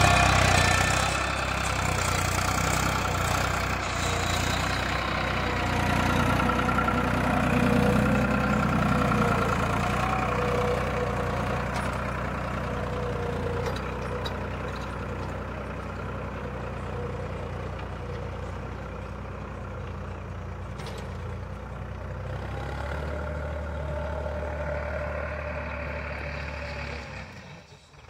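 Tractor engine running steadily, drawing a plough; the sound drops away shortly before the end.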